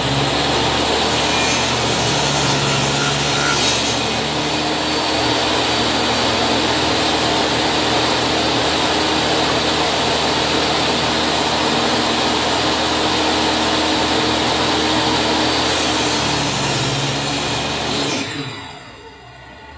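DeWalt jobsite table saw running at full speed while pine pieces are crosscut at an angle with the miter gauge; the motor winds down near the end.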